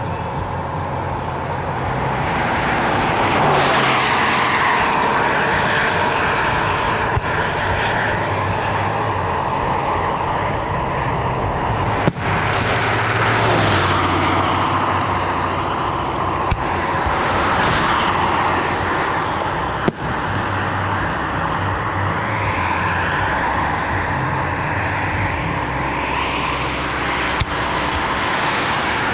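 Road traffic passing on a highway, several vehicles each swelling up and fading away, over a steady low hum. Three short sharp pops stand out about twelve, seventeen and twenty seconds in.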